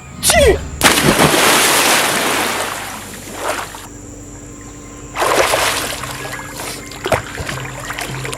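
A person sneezes, then there is a loud splash about a second in as a body drops into water. A second, shorter splash comes about five seconds in.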